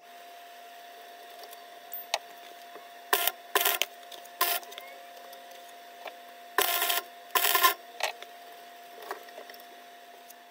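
Gasless MIG welder laying short tack welds on steel nuts and washers: five brief crackling bursts in two groups, over a steady hum.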